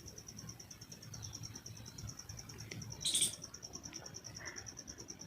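A cricket chirping in a steady, rapid pulsing trill. About three seconds in there is a brief, louder hiss.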